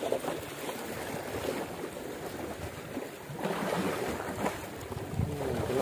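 Small sea waves washing at a rocky shoreline, a steady hiss of moving water.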